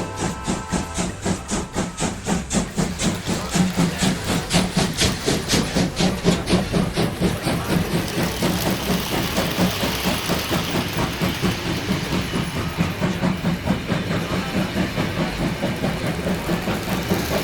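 Model steam locomotive departing with a passenger train: rhythmic steam chuffing, about five beats a second, over a steady hiss. A brief tone at the very start fits a whistle. From about halfway through, the beats blur into a more even hiss.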